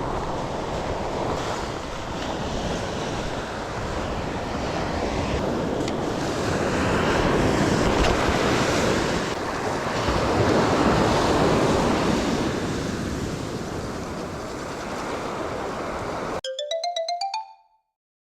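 Surf breaking and washing up the beach, swelling and ebbing, with wind buffeting the microphone. Near the end it cuts off abruptly to a short electronic chime of tones stepping upward, followed by silence.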